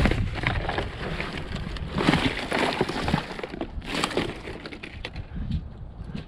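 Rummaging through building-site debris in a skip: scrap pieces scraping and knocking together in irregular bursts, the busiest about two to three seconds in and again around four seconds.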